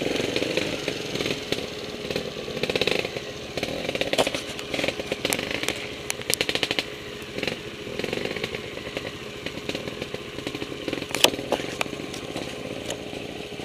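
Trials motorcycle engine running at low revs with a buzzing, chainsaw-like note, swelling briefly a few times as the throttle is opened. A sharp knock sounds about eleven seconds in.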